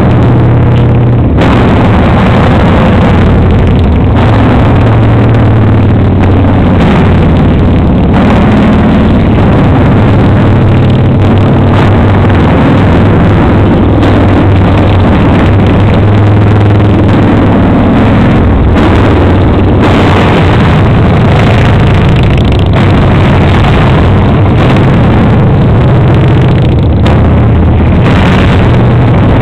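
A long line of cruiser motorcycles riding past one after another, their engines running loudly and steadily without a break.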